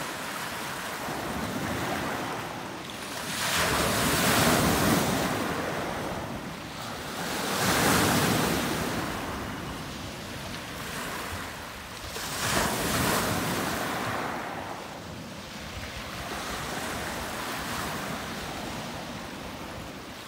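Small lake waves breaking and washing onto a pebble beach, with three louder surges about four to five seconds apart. Wind rumbles on the microphone.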